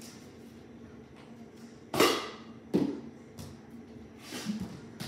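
Two sharp knocks about three-quarters of a second apart, each with a short ringing tail, over a faint steady hum, with a softer knock near the end.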